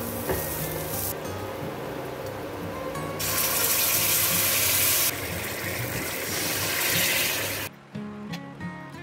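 Garlic and onion frying in a nonstick pan, sizzling steadily, with the sizzle growing louder about three seconds in as sauce is poured into the hot pan. The sizzling cuts off near the end, over background music.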